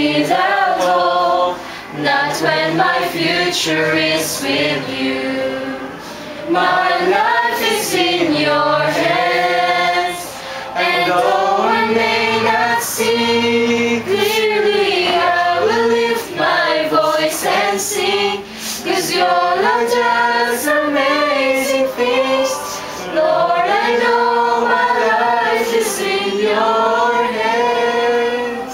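A small group of women singing a song together, phrase after phrase with brief pauses for breath.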